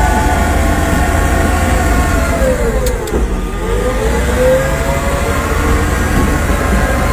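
Caterpillar D9T bulldozer's diesel engine running as it warms up after a cold start; about three seconds in its speed drops briefly and then climbs back up.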